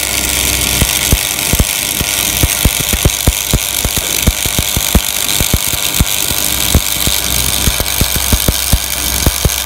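Stick (shielded metal arc) welding: the electrode's arc crackling and popping irregularly over a steady hiss, with a low steady hum underneath.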